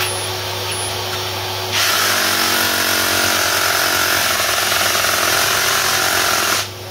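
Ryobi One+ HP 18V brushless one-handed reciprocating saw cutting through treated 70x45 timber. It starts about two seconds in and stops shortly before the end, over a steady low hum.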